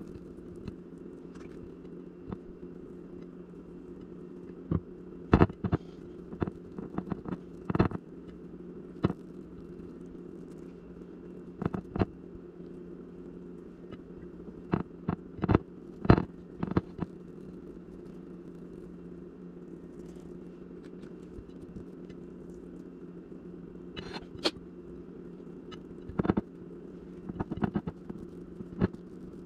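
Irregular clicks and taps of food being handled on a ceramic plate as bacon strips are wrapped around rolled bread and pinned with toothpicks. The taps come in scattered clusters over a steady low hum.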